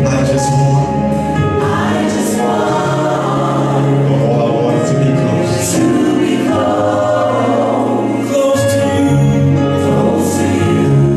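Gospel music: a choir singing over held chords and a low bass line that changes every few seconds.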